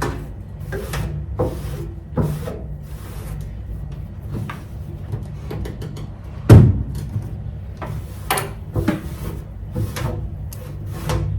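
Household items being handled and set down on top of a microwave: a run of light knocks, clicks and rubbing, with one loud thump about six and a half seconds in.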